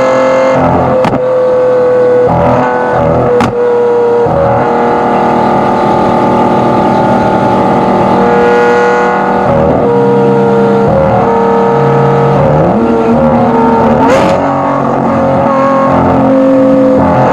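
Lamborghini Aventador SVJ's V12 with a Gintani exhaust, recorded right at the tailpipe, running under load at fairly steady revs. The revs rise about twelve seconds in, with a few sharp cracks from the exhaust along the way.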